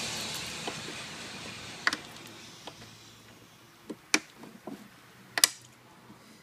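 Scattered sharp clicks and taps of hard plastic and metal as a pin and locking plug are worked into a plastic baby swing seat. The three loudest come about two, four and five and a half seconds in, over a background rush that fades away during the first two seconds.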